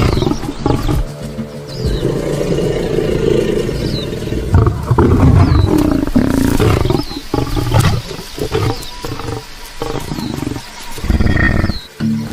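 Lion roaring in a run of loud, low calls that break into shorter separate bursts in the second half.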